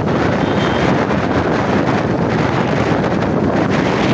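Steady wind noise buffeting the microphone on a moving motorbike, with the bike and road noise running beneath it.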